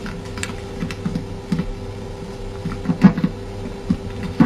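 A sheet of paper being folded and creased by hand: scattered soft rustles and taps over a steady low hum.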